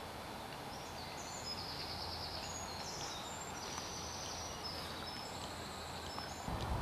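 Steady outdoor background noise with small birds chirping and trilling in short high phrases through the middle. Low rumbling starts near the end.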